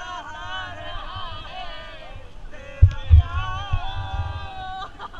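Several voices singing together in long, wavering notes, with heavy low thumps on the microphone about three seconds in.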